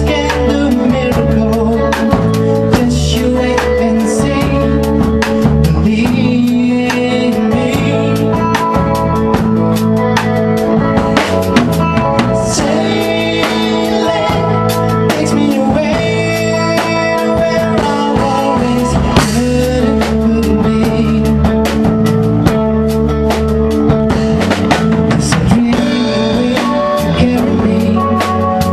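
A rock band playing live: electric guitar, bass guitar and a drum kit keeping a steady beat, with a male voice singing through a microphone.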